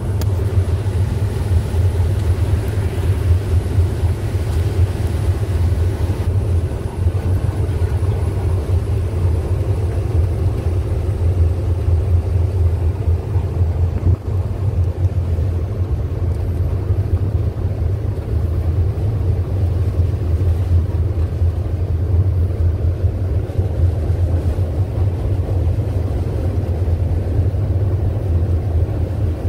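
Steady low drone of a loaded diesel truck under way, engine and road noise heard from inside the cab, with no change in pace.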